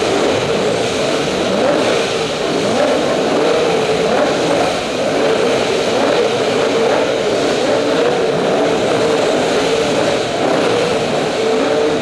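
Car engine with an aftermarket exhaust held at high revs in a steady, loud drone with a wavering pitch, echoing in an underground parking garage.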